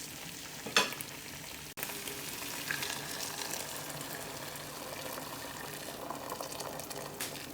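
Mutton and masala frying in a pot, a steady sizzle, with one sharp clink of the stirring ladle a little under a second in.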